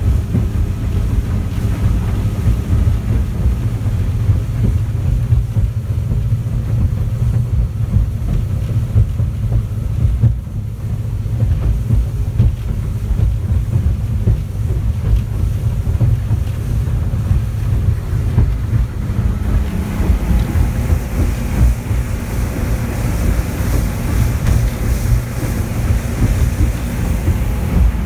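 Motorboat underway through choppy water, heard from inside its enclosed cabin: a steady low engine drone mixed with irregular thuds and slaps of the hull on the waves. A hiss in the higher range grows louder about twenty seconds in.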